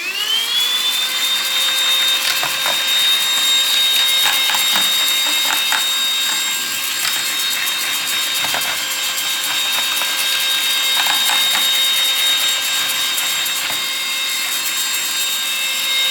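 Baseus A1 cordless handheld car vacuum switched on, its motor spinning up with a rising whine over the first second or so and then running steadily. Its extended brush nozzle clicks and rattles over keyboard keys as it cleans.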